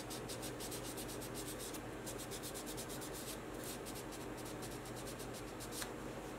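Sandpaper rubbed in quick, short strokes against the edge of a resin faux-ivory revolver grip panel to shape it: a dry scratching that comes in runs with brief pauses.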